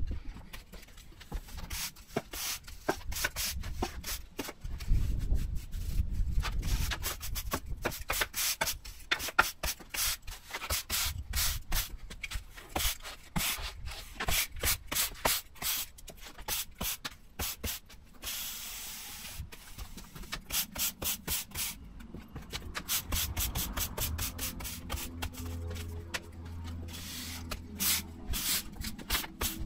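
Stiff broom sweeping sand over block paving in quick repeated strokes, the bristles scraping across the blocks as sand is worked into the joints during re-sanding. A brief steadier hiss comes a little past the middle, and a low steady hum joins near the end.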